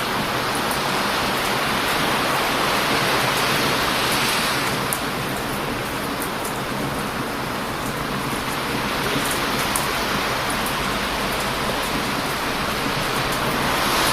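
Strong ocean waves crashing on a beach, a steady rushing wash that swells about two seconds in and again near the end, with faint sharp crackles from a wood campfire now and then.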